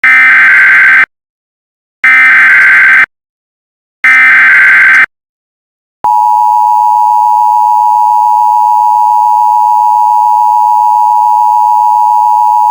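Emergency Alert System test tones, loud. First come three one-second bursts of the SAME digital header, a screechy warbling data squawk, spaced a second apart. About six seconds in, the steady two-tone EAS attention signal starts and holds.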